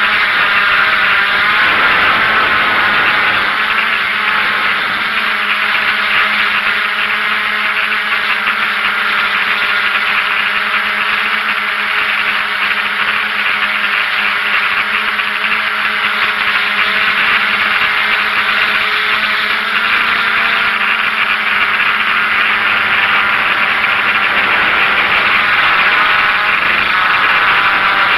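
DJI F550 hexacopter's six electric motors and propellers buzzing steadily in flight, heard from the camera on the airframe, with small shifts in pitch as the motor speeds change.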